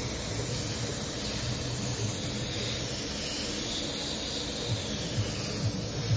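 Airbrush hissing steadily as it sprays, with its air compressor running. Near the end, short low thumps come about twice a second.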